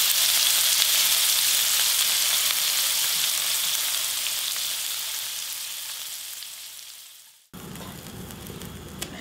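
Pork belly rolls sizzling in oil in a frying pan, a dense steady hiss that fades out over the first seven seconds. After a sudden cut, the much quieter hiss of a lidded pot of water heating on the stove, with a single click near the end.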